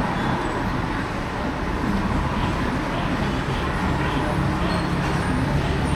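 Steady road traffic noise, with a low engine hum growing stronger in the second half.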